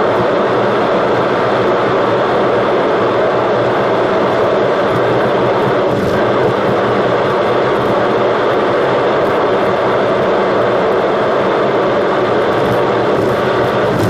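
Steady road noise of a car driving at a constant speed, heard from inside the cabin: an even, unbroken rush of tyre and engine noise.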